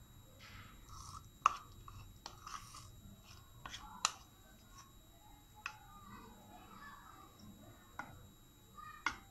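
Metal spoon scraping thick, soft chocolate barfi mixture out of a bowl, with about five sharp clinks of the spoon against the bowl's edge among quieter scraping.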